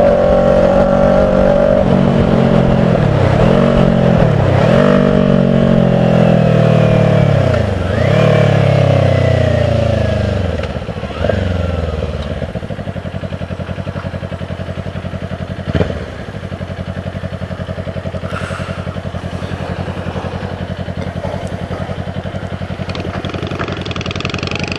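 Kawasaki Ninja 400's parallel-twin engine under way, its revs climbing and dropping back sharply several times as it shifts up. About halfway it settles to a quieter, steady low running. A single sharp knock comes a few seconds later.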